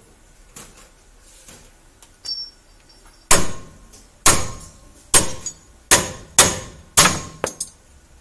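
Hammer striking metal, driving the old ball joint out of a truck's lower control arm: a few light taps and a ringing strike, then about seven hard blows roughly a second apart, each with a short metallic ring, until the joint comes free.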